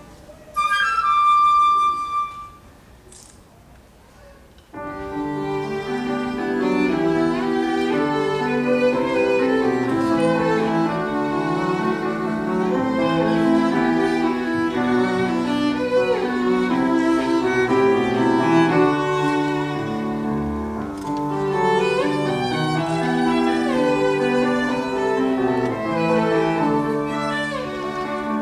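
Live chamber trio of Yamaha grand piano, violin and flute. After a single held high note the music pauses for about two seconds. The piano and violin come back in together about five seconds in and play on, with the violin carrying the melody over piano chords.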